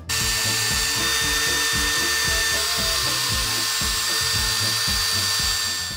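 Power drill running continuously at a steady speed with a high whine, switching on abruptly and stopping near the end, over background music.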